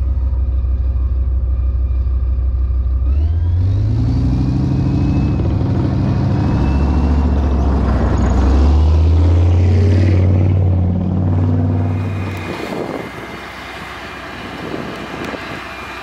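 Leopard 1-based armoured recovery vehicle's 10-cylinder MTU diesel idling, then revving up about three seconds in as the tank moves off and passes close by. The engine note is loudest as it goes past, then falls away sharply a few seconds before the end.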